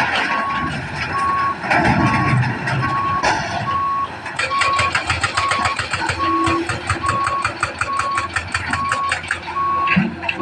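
Heavy equipment's backup alarm beeping steadily, about once a second, over a diesel engine running, as an excavator loads rock into a dump truck. Rumbling surges come about two and three seconds in, and a rapid, even clatter runs from about four to nine seconds in.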